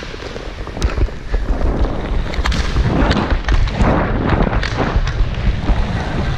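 Inline skates rolling on a roller hockey rink floor with a low rumble on a helmet-mounted action camera's microphone, and several sharp clicks of a hockey stick handling the puck.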